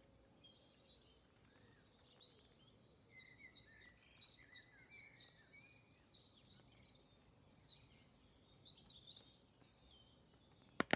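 Near silence, with faint bird chirps in the background through the middle, and a single click near the end.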